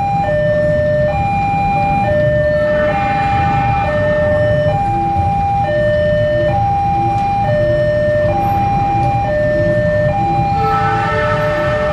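Railway level-crossing warning alarm: an electronic signal alternating between a higher and a lower tone, repeating evenly. Under it runs a steady low rumble as a diesel-hauled passenger train approaches.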